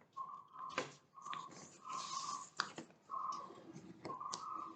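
A sheet of A4 paper rustling and being creased by hand as it is folded, in irregular crinkly bursts with a few sharp crackles.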